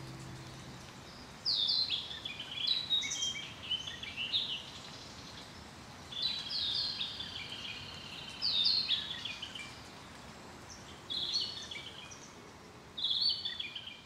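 Wild songbirds singing in woodland: short phrases of quick falling whistles, one every couple of seconds. The last of a guitar music track fades out at the very start.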